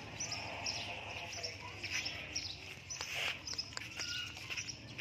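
Small birds chirping, a short high chirp repeating about two or three times a second, with a few faint sharp clicks around the middle.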